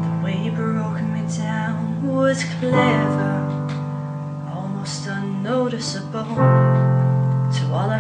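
Background music: held chords that change about every three and a half seconds, with a melody line moving over them.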